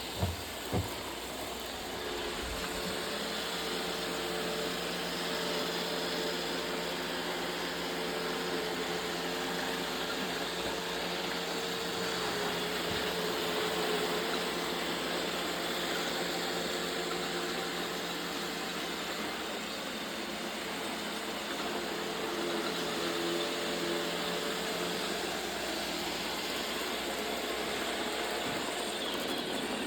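Roomba robot vacuum running with a steady motor whir, with two short knocks about half a second apart right at the start.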